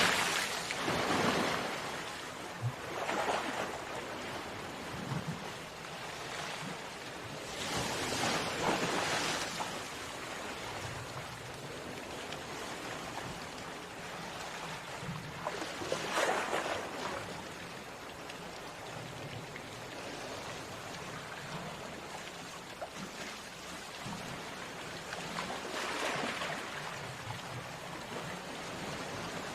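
Sea waves breaking on a beach: a steady wash of surf with a louder wave surging in every several seconds.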